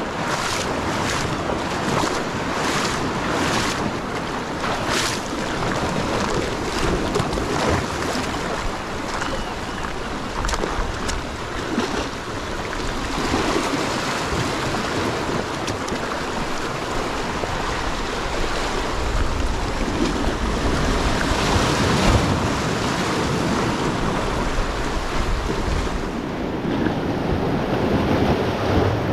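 Small sea waves surging and washing over rocks, a continuous hiss of surf, with wind buffeting the microphone and a low rumble of gusts about twenty seconds in.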